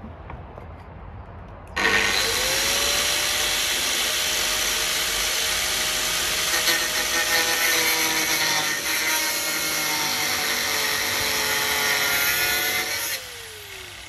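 Angle grinder started about two seconds in and run at steady speed, grinding metal at the rear door hinge with a loud hiss. It is switched off near the end, and its pitch falls as the disc spins down.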